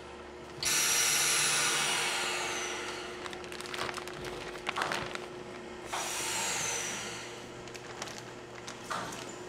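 Two long hisses, each starting suddenly and fading over two or three seconds with a falling whistle at the end, over a steady machine hum. Between them, plastic packaging bags crinkle briefly as sausages are bagged by hand.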